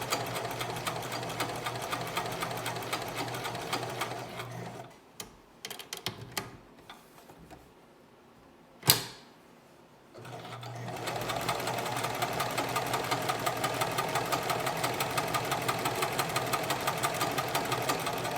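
Necchi 537L sewing machine running and sewing a straight stitch with a steady, rhythmic clatter. It stops after about four and a half seconds; a few light clicks and one sharp click follow, and then it starts sewing again about ten seconds in.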